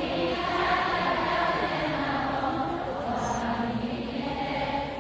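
A large crowd of fans singing along together, many voices carrying one melody like a choir.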